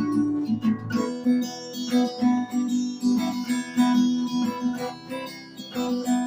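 Acoustic guitar strummed in a steady rhythm, chords only with no singing.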